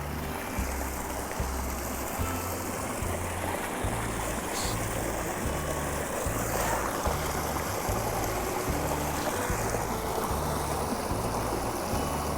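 Background music with a steady, evenly stepped bass line, over the constant rush of flowing creek water.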